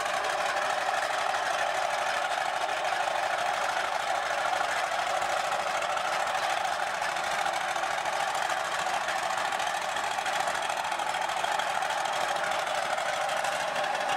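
StuG III assault gun's Maybach V12 petrol engine idling steadily.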